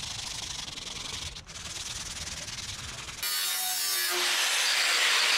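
Sandpaper on a hand block rubbing in strokes over a painted fiberglass boat hull, sanding the paint off the gel coat. About three seconds in it cuts abruptly to a louder angle grinder cutting into a steel drum: a steady high whine over a harsh grinding hiss that builds as the disc bites.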